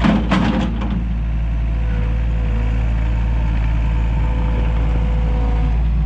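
Engine of a small earthmoving machine running steadily while its smooth bucket back-drags and levels sandy clay soil, with a few knocks and rattles in the first second and a thin steady whine over the engine for a few seconds after that.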